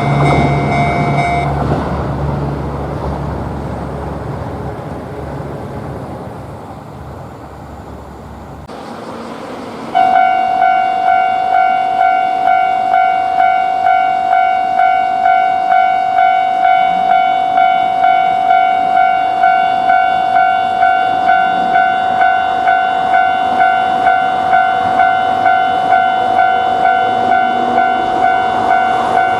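A train rolls past and fades away, with the level-crossing warning bell stopping about a second and a half in. About ten seconds in, a Japanese level-crossing warning bell starts ringing, a steady clang repeating about twice a second.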